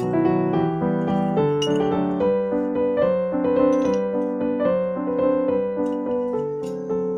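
Background piano music: a melody of held notes over steady chords.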